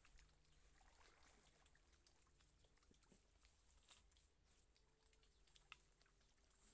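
Near silence: faint outdoor background with a few scattered faint ticks.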